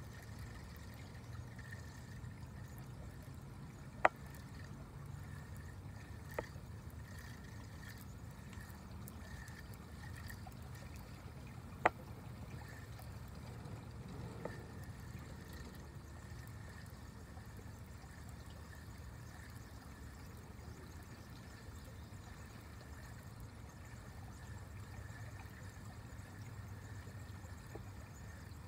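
River water trickling and lapping around an inflatable kayak, with a few sharp clicks, the loudest about four seconds in and again about twelve seconds in.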